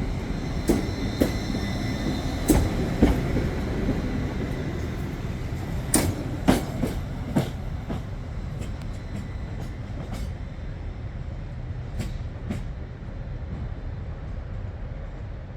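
A train rolling past on steel rails: a steady low rumble with irregular sharp clicks and knocks of wheels over rail joints, and a faint high squeal in the first few seconds. It gradually grows quieter as the train moves off.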